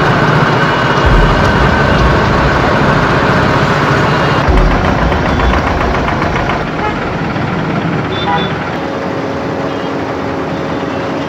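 Busy road traffic at a junction: motorbike, auto-rickshaw and car engines idling and running in a steady din. About two-thirds of the way through the low rumble drops away, leaving a lighter steady hum.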